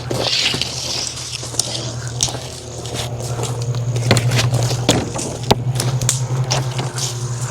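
Wood-Mizer LX25 portable sawmill running steadily, with many irregular sharp clicks and crackles over its hum.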